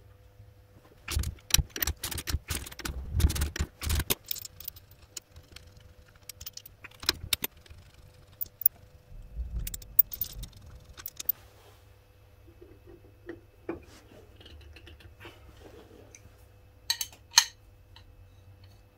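Steel hand tools clinking and clicking against a car's rear brake drum and hub nut, with a socket wrench working on the nut. A dense run of sharp clicks starts about a second in and lasts about three seconds, then scattered clinks follow, and two sharp metallic clinks come near the end.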